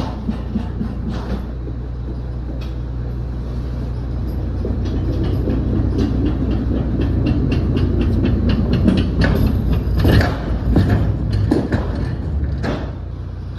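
Manual pallet jack rolling a loaded pallet of boxes across a box truck's floor: a rumbling clatter of its wheels over a steady low drone. It grows louder toward two-thirds of the way through, with several sharp knocks near the end.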